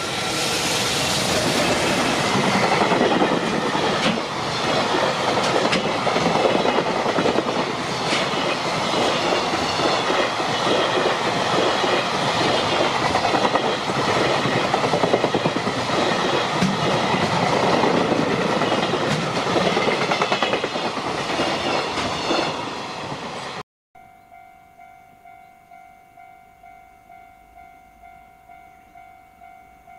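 A JR Freight EF210 electric locomotive and a long train of container wagons passing close by at speed: a loud steady rumble and hiss with the wheels clattering over rail joints, which cuts off suddenly about three-quarters of the way through. After the cut comes a faint steady tone that pulses about twice a second.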